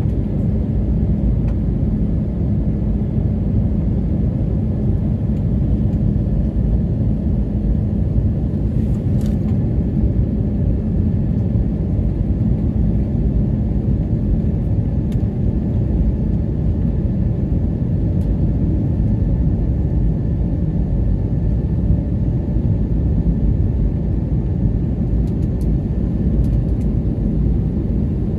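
Cabin noise of a jet airliner climbing after take-off, heard from inside the cabin: a loud, steady rumble of engines and airflow, heavy in the low end, with a faint steady high whine.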